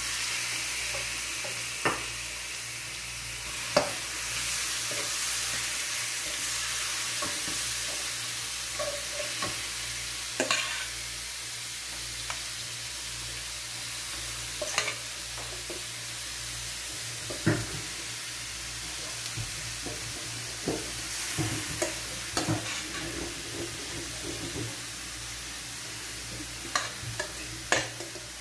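Marinated pork frying in hot oil in a metal wok with a steady sizzle, while a metal spoon stirs it and clinks and scrapes against the pans. The clinks come more often near the end.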